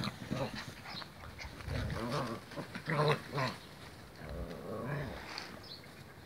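Seven-week-old kelpie-cross puppies growling at each other while play-fighting and wrestling, in a run of short bursts with the loudest about three seconds in.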